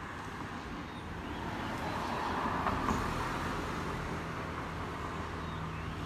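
Road traffic: a vehicle passes on the road, its noise swelling to a peak about halfway through and then easing off, over a steady low engine hum.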